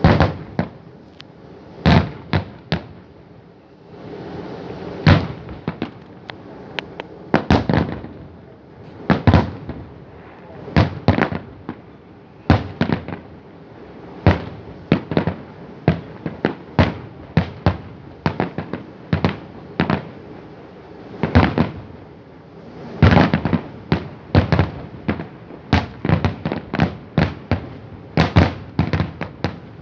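Aerial fireworks display: shells bursting with sharp bangs in irregular succession, sometimes single with a second or two between them, sometimes in quick rattling clusters. The densest volleys come about 23 seconds in and again near the end.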